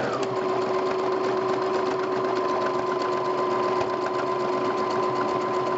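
Brother CE 4000 computerized sewing machine running steadily at constant speed, its needle stitching an automatic one-step buttonhole with the A buttonhole foot: an even motor hum with fast, regular needle ticking.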